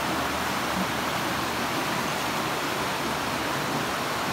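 Water pouring over small stone steps in a Mughal garden water channel: a steady, continuous splashing.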